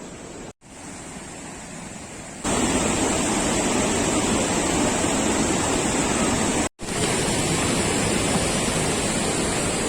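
Steady rushing of a waterfall, jumping louder about two and a half seconds in. Two brief drops to silence where the recording cuts.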